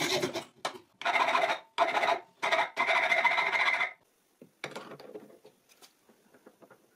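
Hacksaw cutting through a threaded rod, a handful of back-and-forth strokes with short pauses between them that stop about four seconds in. Faint clicks and knocks follow.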